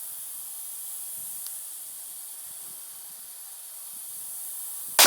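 A steady high hiss, then a single sharp gunshot right at the end, its report trailing off over about a second.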